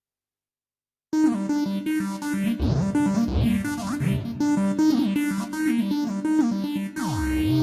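Korg Pa700 arranger keyboard playing one of its factory synthesizer sounds. After about a second of silence it plays sustained notes over a steady low line, with repeated sweeping glides up and down in pitch.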